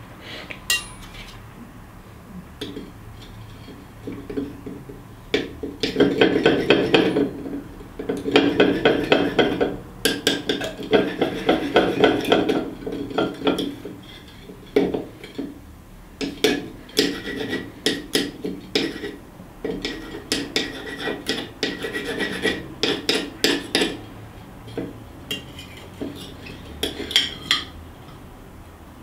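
Table knife sawing and a fork scraping against a rock on a plate: long runs of rapid grating strokes with clinks of metal cutlery on the plate, starting about five seconds in, with short pauses between runs.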